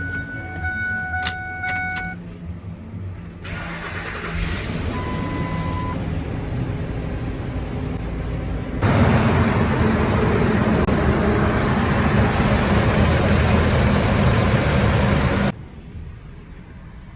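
Ford F-250 being started with a bad starter. A warning chime and a few clicks come first, then a mechanical noise with a low engine hum. A loud, harsh starter-and-engine noise lasts about six seconds and cuts off suddenly.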